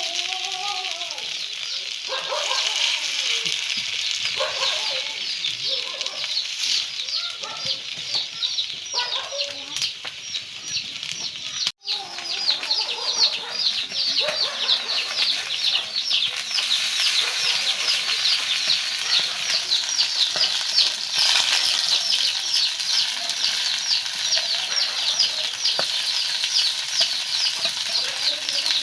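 Oil sizzling steadily in a pan as leaf fritters fry, with a fast, even crackle throughout. The sound cuts out for an instant about twelve seconds in.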